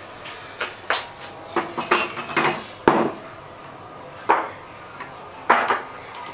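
Small cups and a teapot clinking and knocking on a tray and a table as they are set out, a run of sharp clinks and knocks, the loudest about three seconds in.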